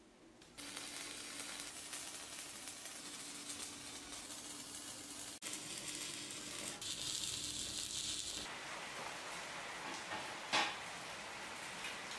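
Stick arc welding on steel: the arc's steady crackling sizzle, starting about half a second in, broken briefly about five seconds in and stopping about eight and a half seconds in. A single sharp knock near the end is the loudest moment.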